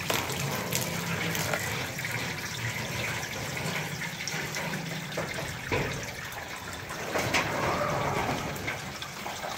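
Water from a garden hose running through a new galvanized steel rain gutter, trickling and dripping at a joint, with a few sharp drip ticks. The water is leaking back at the joint and running onto the wooden fascia board.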